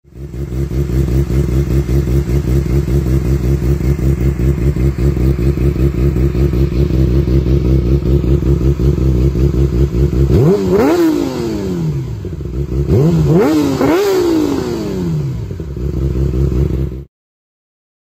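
Yamaha YZF-R6's inline-four engine through a Hindle aftermarket exhaust. It idles steadily, is revved sharply once about ten seconds in, then blipped twice in quick succession, each rev falling back to idle. The sound cuts off abruptly near the end.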